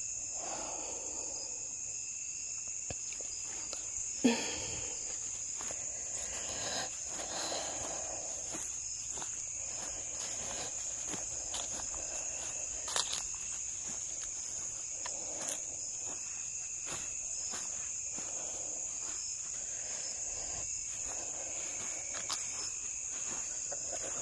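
Steady high-pitched chorus of insects, with soft footsteps on grass and a sharp knock about four seconds in.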